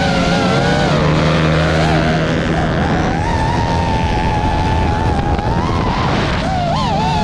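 High-revving small motors whining, their pitch rising and falling constantly as the throttle changes, with the pitch wavering quickly near the end.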